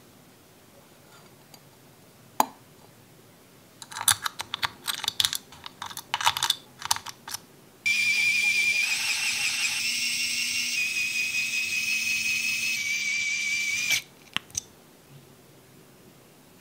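Light metal clicks and taps as the aluminium cover and screws of a mini engine are handled, then a small electric screwdriver runs for about six seconds with a steady high whine that steps slightly in pitch as it drives the cover's cap screws, ending with a couple of clicks.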